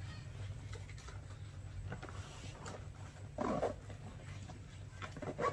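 Badminton bag being handled: faint rustling of the straps and clicks of buckles and clips over a steady low hum. Two short vocal sounds stand out, one about three and a half seconds in and one at the very end.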